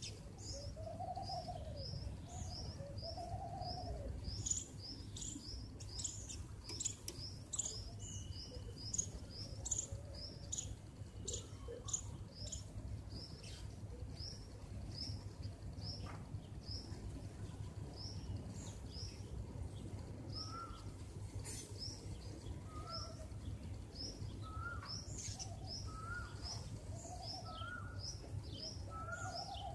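Small birds chirping: a steady string of short, high chirps about two a second, with a few lower arched calls near the start and other mid-pitched notes later on, over a low steady hum.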